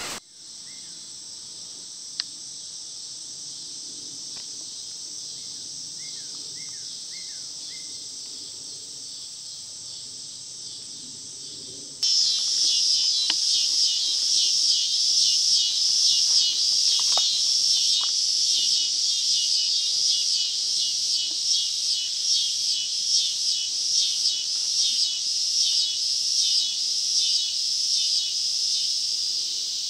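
Woodland insects buzzing steadily at a high pitch, with a few short bird chirps about six to eight seconds in. About twelve seconds in it jumps to a much louder insect chorus that pulses about once a second.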